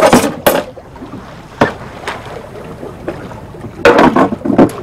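Water splashing against the hull of a small open fishing boat on choppy sea, with a steady rush of wind and water. Loud splashes come right at the start and again about four seconds in, and there is a single sharp knock about a second and a half in.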